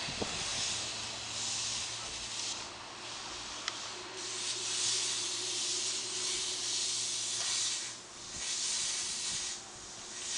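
JR Kyushu 305 series electric train standing at the platform, compressed air hissing from it in three long bursts over a low steady hum from its equipment.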